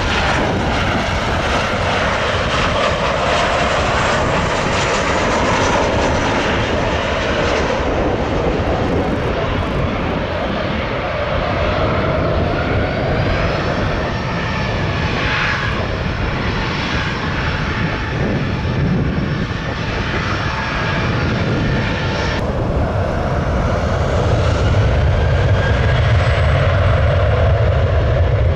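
Boeing 737-700 jet airliner's CFM56 turbofans running on final approach and through touchdown: a continuous loud rumble and whine. Later it gives way to another Boeing 737 taxiing, with a deeper, stronger rumble near the end.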